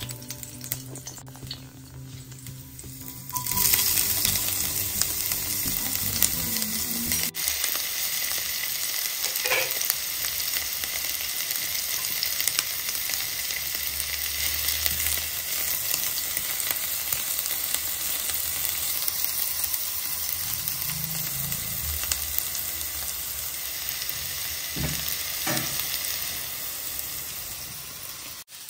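Chopped onions sizzling in hot oil in a wok. The sizzle jumps up suddenly about three seconds in and stays steady, with a few brief knocks of stirring.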